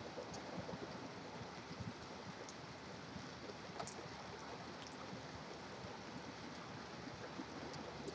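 Steady rain with distant highway traffic: a constant hiss with a low rumble under it, and a few faint scattered ticks of drops.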